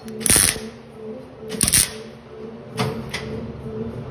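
Wire-feed (MIG) welding arc crackling in short bursts, about four quick tacks, as weld is built up on a broken stud, with a steady low hum underneath.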